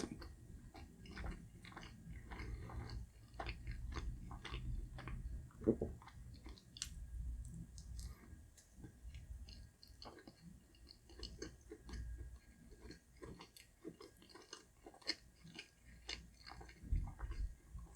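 Close-up chewing of a soft steamed barbecue pork bun (char siu bao): faint, irregular wet mouth clicks and smacks, with a short closed-mouth hum about six seconds in.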